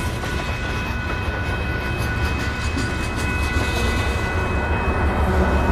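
Freight train passing close by: a steady low rumble of rolling railcars with a few thin, steady high-pitched ringing tones over it. The rumble grows louder toward the end as Union Pacific diesel locomotives approach on the next track.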